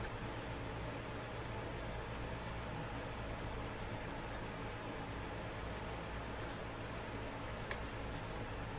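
Small cleaning brush scrubbing the front face of a revolver cylinder, a steady scratchy rubbing, with a faint click near the end.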